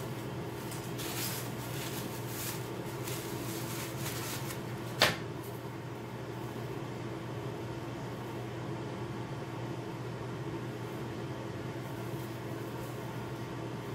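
Steady mechanical hum of a fan in a small room, with soft rustles of a wig being handled in the first few seconds and one sharp click about five seconds in.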